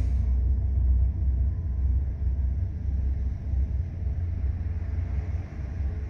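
Freight train's BNSF and Kansas City Southern diesel locomotives rolling past, a steady deep rumble of engines and wheels heard through a window.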